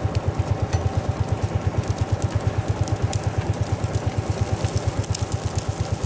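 1954 Lanz Bulldog 3606's single-cylinder two-stroke hot-bulb engine running with a steady, even beat, several firings a second, while it drives a cable winch hauling a log.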